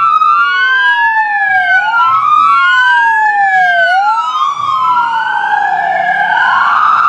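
Two police car sirens wailing at once. Their slow rising-and-falling sweeps cross each other, each sweep taking about two seconds.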